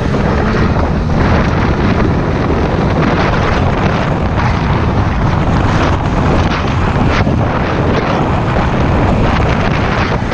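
Small motorboat running underway, its engine's steady hum mixed with heavy wind buffeting the microphone.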